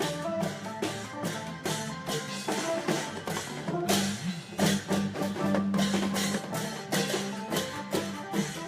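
Isan klong yao long-drum ensemble playing: a steady beat of drum and cymbal hits, about three a second, under a held melody line.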